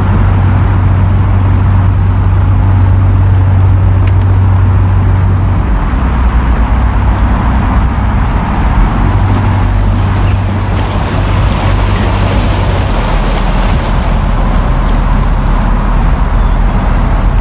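Narrowboat's inboard diesel engine running steadily under way, a loud low drone whose note shifts slightly twice.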